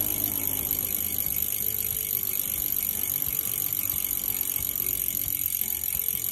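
Freehub of a DT Swiss G1800 wheel ratcheting steadily as the wheel freewheels, a fast continuous buzz of clicks.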